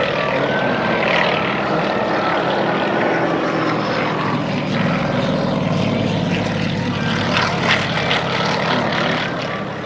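Yak-52 propeller aircraft engine running steadily: the drone of its nine-cylinder radial and its propeller.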